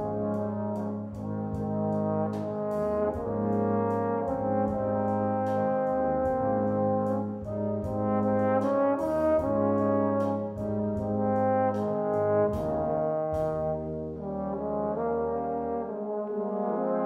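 Brass ensemble playing in full held chords, with long low bass notes underneath and the harmony changing every second or two.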